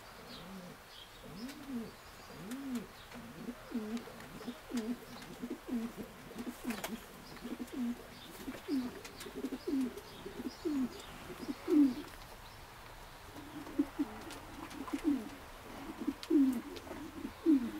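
King pigeons cooing: a steady run of low coos, roughly one a second.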